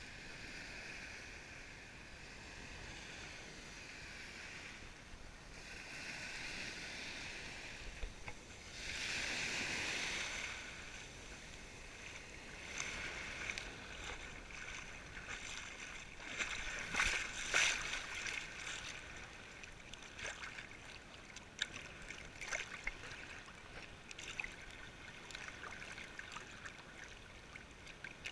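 Small sea waves washing and sloshing around the microphone at the water's surface, with a louder rush of water about nine seconds in and splashy crackling around seventeen seconds.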